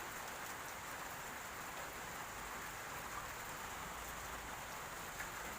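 Steady, even background hiss with no distinct events, apart from a faint tick near the end.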